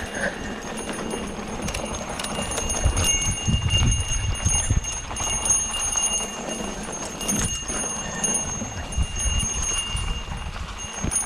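Mountain bike rattling and knocking as it rolls over a rough dirt trail.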